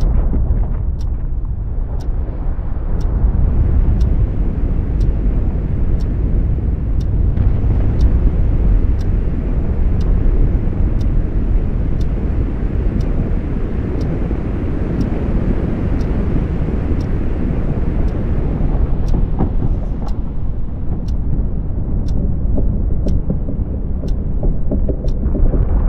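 Deep, steady rumble of a glacier's calving face collapsing, huge blocks of ice breaking apart and falling. Above it runs a faint, even, high ticking, a little faster than once a second.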